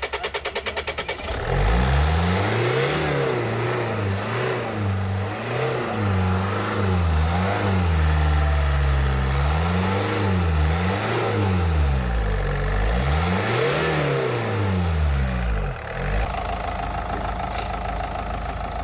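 Range Rover Evoque 2.2 SD4 four-cylinder turbodiesel cranking on the starter for about a second, then firing about 1.5 s in. It is revved up and down several times, then settles to a steady idle near the end: the first start after a fuel filter change.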